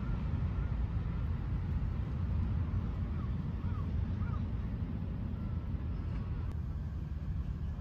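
Outdoor ambience: a steady low rumble, with a few faint short bird chirps, most of them about three to four and a half seconds in.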